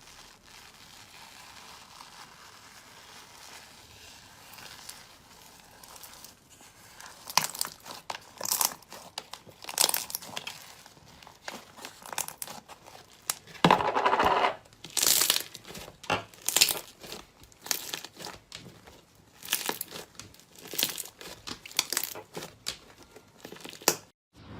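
Slime being squeezed and pressed by hand, giving irregular sharp crackling clicks and pops, with a short stretch of denser crinkling just past the middle. The first several seconds are only faint.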